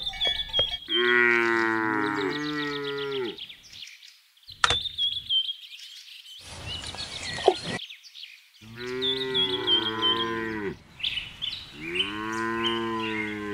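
Cows mooing: three long moos of about two seconds each. Birds chirp high over them, and there is a brief hiss midway.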